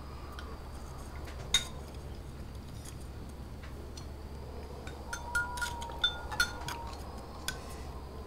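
Chopsticks clicking and clinking against porcelain bowls during a meal: a sharp click about a second and a half in, then a cluster of clinks around five to six and a half seconds in, over a steady low hum of room tone.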